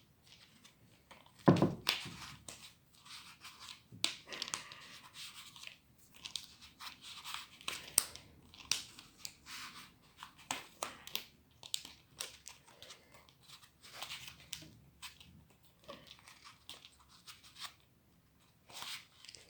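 Hands working plastic and balloon parts: irregular crinkling, tearing and scraping with scattered sharp clicks and taps, and one louder knock about a second and a half in.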